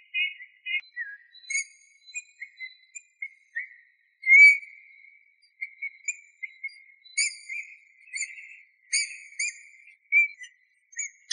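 Eurasian bullfinch singing: a steady string of short whistled notes held near one pitch, with one louder piping note about four seconds in.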